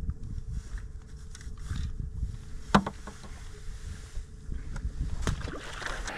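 Boat noise with a low rumble of wind on the microphone, a faint steady hum that stops about four and a half seconds in, and two sharp knocks, one near three seconds and one a little after five.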